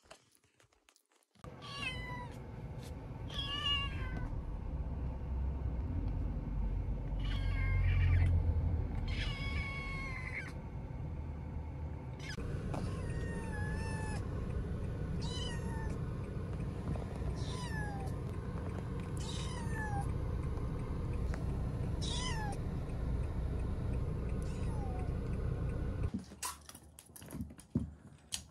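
A young kitten meowing repeatedly from inside a plastic pet carrier, about ten meows spaced a second or two apart, many falling in pitch at the end, over a steady low rumble that stops near the end.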